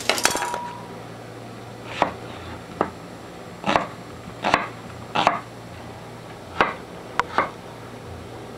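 Kitchen knife cutting through an onion onto a wooden cutting board: about eight separate cuts, each a sharp knock, spaced unevenly about a second apart.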